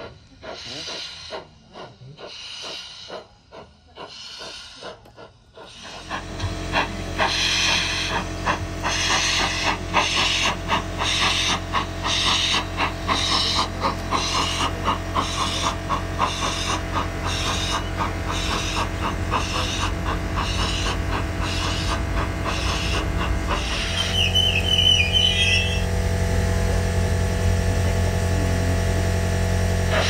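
Sound card of a G-scale Bachmann GWR 45xx 2-6-2 Prairie tank locomotive playing steam exhaust chuffs, about two a second, over a steady hum and the clicking of its wheels on the rails, louder from about six seconds in. About 24 seconds in the chuffing stops, leaving a steady hiss and hum.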